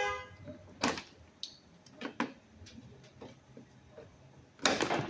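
A few sharp clicks and knocks of hand tools and engine parts being handled, the loudest a cluster near the end, with a brief pitched squeak at the very start.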